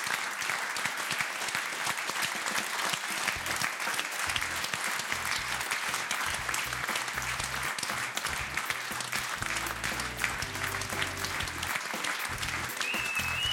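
Studio audience applauding steadily, with music coming in underneath about three seconds in.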